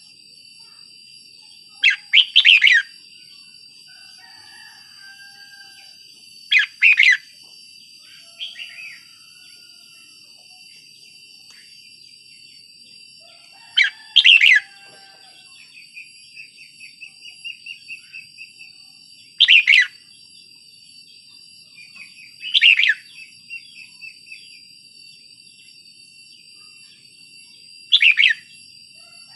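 Red-whiskered bulbul singing: short, loud whistled phrases every few seconds, about six in all, with a run of softer, quick chattering notes in the middle.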